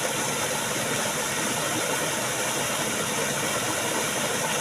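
Steady rushing of flowing river water, an even noise with no change in level.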